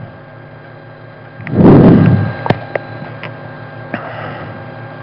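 Steady electrical hum on a speech microphone, with a short, loud burst of low noise about a second and a half in, followed by a few sharp clicks.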